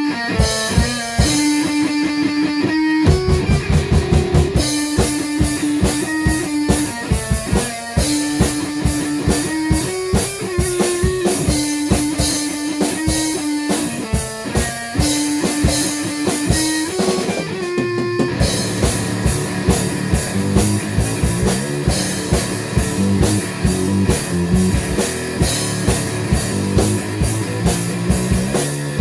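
Rock music: an electric guitar riff over a steady drum kit beat, with the full band coming in heavier and denser about two-thirds of the way through.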